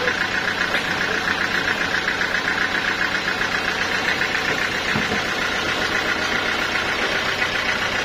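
Sawmill machinery running steadily, a continuous mechanical drone with a fast, even pulse.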